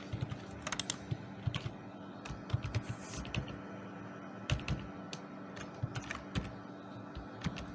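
Computer keyboard being typed on: irregular key clicks, some in quick clusters, over a faint steady hum.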